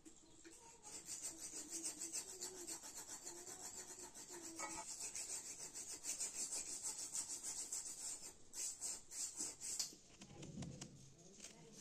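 Rapid, even scratching strokes, several a second, like hand work against a rough surface, pausing briefly near the end and then resuming.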